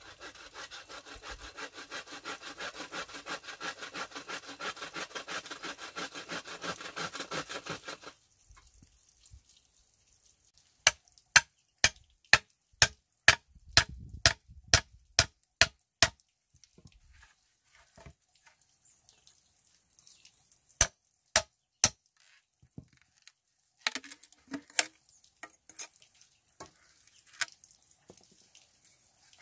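Wood being sawn with quick, even rasping strokes for about eight seconds. Then comes a run of loud, sharp knocks about two a second, followed by a few more scattered knocks near the end.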